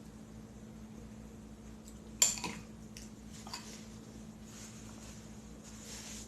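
Eating utensil clinking against a bowl while eating: one sharp clink about two seconds in, a fainter one a second later. A steady low hum runs underneath.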